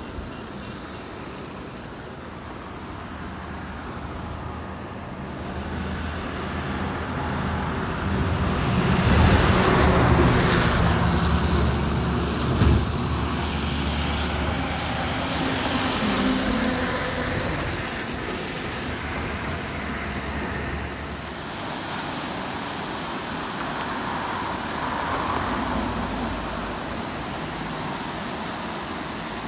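Road traffic: a heavy vehicle's engine drone builds up, is loudest about a third of the way in with a sharp knock just after, and then fades away. In the last third it gives way to a steady rush of water pouring through the gates of an irrigation intake.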